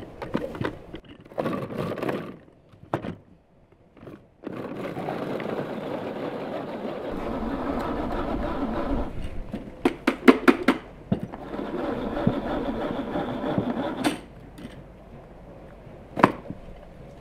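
A manual pull-cord food chopper whirring as its blades spin through onion pieces, pulled repeatedly. There are long whirring stretches broken by sharp plastic clacks between pulls.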